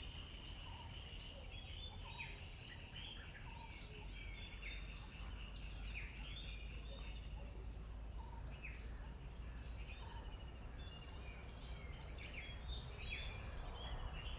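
Birds chirping and singing with many short calls, over a steady low background rumble.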